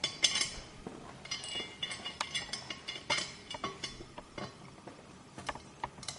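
Irregular light clicks, taps and clinks of the saucepan's handle parts and metal fittings being handled while a new handle is fitted, some with a brief ring.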